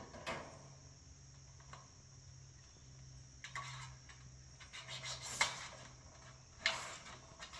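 Scattered knocks, scrapes and rattles from a man shifting about in a metal tree stand blind, the loudest about five and a half and seven seconds in. Steady insect chirring and a faint low hum run underneath.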